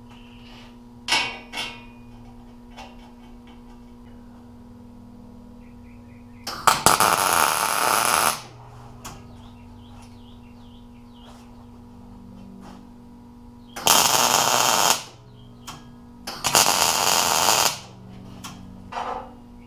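MIG welder tack-welding a small steel ring onto a square-tube steel frame: three bursts of crackling arc, each about one to two seconds long, with a steady low hum in between. Two light metal clinks come about a second in as the ring is set in place.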